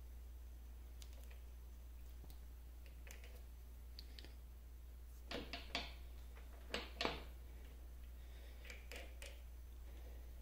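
Light metallic clicks and taps of a lathe handwheel's graduated dial collar and nut being handled and worked loose by hand. The loudest come in two quick clusters near the middle, over a low steady hum.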